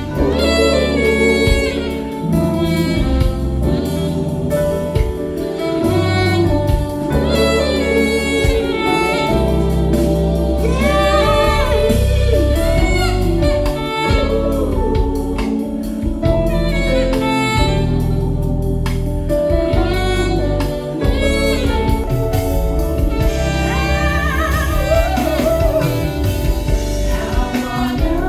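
A song with a sung vocal melody over a heavy bass line, played through a JBL PartyBox party speaker.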